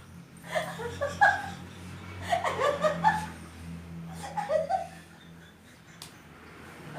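A person laughing in three short bouts, over a steady low hum.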